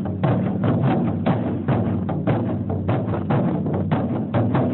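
Ensemble of large taiko-style barrel drums beaten with sticks in a driving, even rhythm, about three heavy beats a second with lighter strikes between.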